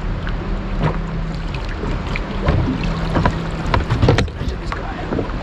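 Wind buffeting the microphone over a steady low rumble of a small boat on open water, with scattered knocks and clatter from gear being handled aboard.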